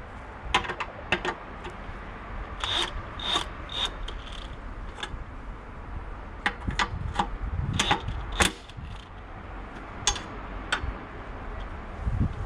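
Irregular clicks, clanks and scraping of metal hand tools and parts being handled during work on a car; no power tool is running.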